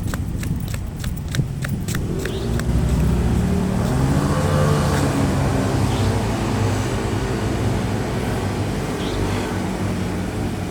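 Quick running footsteps on pavement, about four steps a second, for the first two and a half seconds. Then a road vehicle's engine grows louder and runs steadily, drowning them out.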